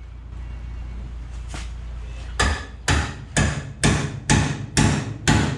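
Hammer striking a stuck steel car frame rail, about two sharp, ringing metal blows a second, starting a little over two seconds in: the rail is being knocked loose. A steady low rumble runs underneath.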